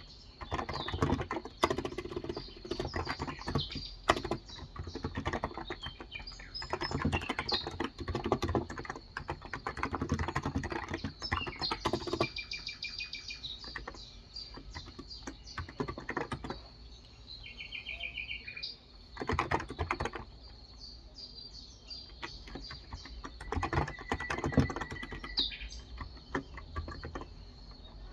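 Typing on a Cox Endeavour electrostatic capacitive tenkeyless keyboard with 35 g switches, in bursts of rapid keystrokes broken by pauses. Birds chirp in the background, most clearly while the typing stops.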